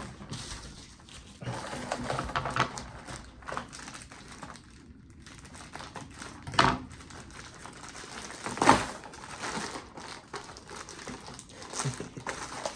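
Packaging crinkling and rustling as small fishing-lure packets are handled and opened, with two sharp clicks or knocks, about six and a half and nearly nine seconds in, the loudest sounds.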